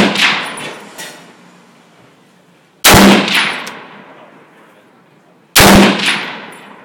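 Browning Automatic Rifle (.30-06) firing short bursts of a few rounds each. One burst is fading as the sound begins, then two more come about three and five and a half seconds in. Each report is very loud and rings out for about a second.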